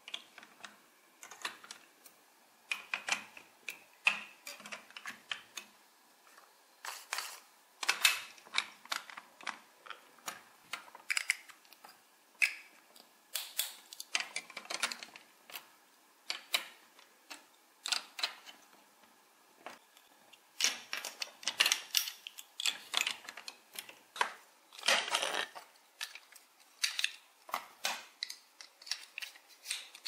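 Large plastic building blocks being pressed together and handled: an irregular run of sharp plastic clicks and clatters, some much louder than others, with short pauses between them.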